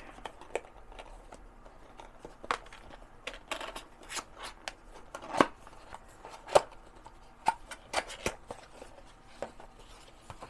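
Empty cardboard box being broken down by hand: scattered snaps, crinkles and knocks of cardboard flaps folding and tearing, the loudest about five and a half and six and a half seconds in.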